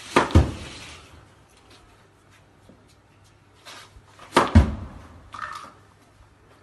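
Two tennis serves in a small walled, tiled space: each is a sharp crack of the racket on the ball, followed at once by a heavier thump with a short echo. The first comes about a third of a second in and the second about four and a half seconds in, with a few fainter knocks between them.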